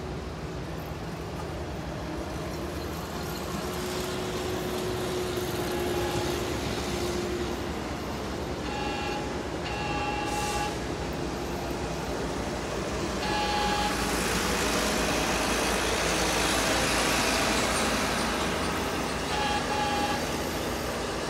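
Maintenance-of-way train approaching and passing with a diesel engine running. Its horn sounds four times: a short blast about nine seconds in, a longer one about a second later, another short one around thirteen seconds, and a last short one near the end. Rumble and rail noise build to their loudest around seventeen seconds.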